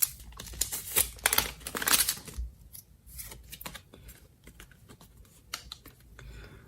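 Foil Pokémon booster pack being torn open and crinkled for the first two and a half seconds or so, then quieter rustling and light clicks of the cards being handled.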